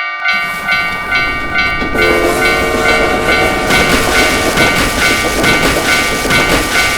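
Railroad level-crossing warning bell ringing at about two strikes a second while a train passes. The rushing rumble of the train starts just after the beginning, grows louder about two seconds in, and cuts off at the end.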